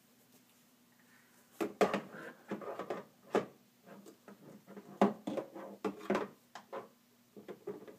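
Irregular knocks and clatter of toy play-kitchen parts and toy dishes being handled, starting about a second and a half in, with the sharpest knocks near two seconds and five seconds in.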